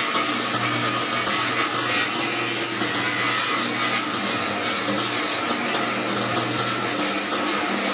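Sliding table saw running steadily and cutting a large sheet of white melamine-faced board as it is fed past the blade.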